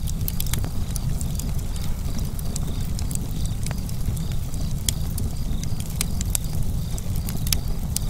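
Log fire burning: a steady low rumble with irregular sharp crackles and pops.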